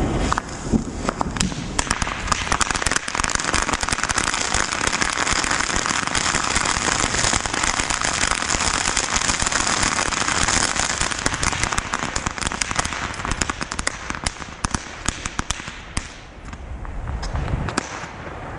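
A chain of small crackling ground fireworks going off: a dense, rapid crackle of many small pops over a hiss, thinning out over the last few seconds into a few scattered pops.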